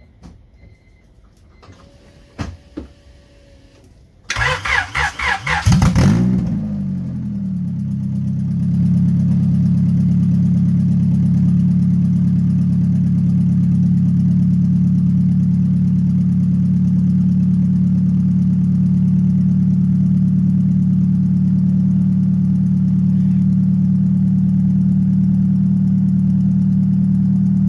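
Honda H22 engine in a Civic cranked by the starter for about two seconds, catching and revving briefly, then settling into a steady idle. It is the first start after the transmission and rear main seal were replaced. A couple of light clicks come before the cranking.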